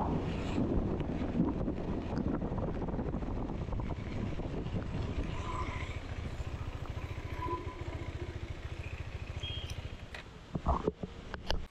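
Single-cylinder engine of a KTM 390 Adventure motorcycle running under way, with road and wind noise, heard from the rider's helmet camera. It eases off and fades as the bike slows near the end, followed by a few sharp knocks before the sound cuts off.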